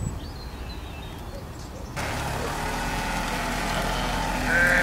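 Pickup truck engine running steadily, coming in abruptly louder about two seconds in after a quieter start. A sheep starts bleating near the end.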